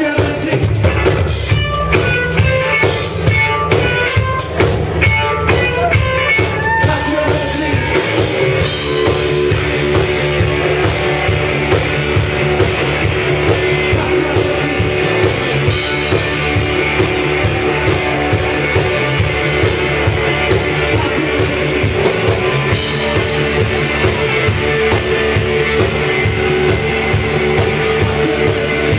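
Live rock band playing loud, with electric guitars, bass, a drum kit and singing. A lead line of short high notes in the first several seconds gives way to steady held chords over the beat.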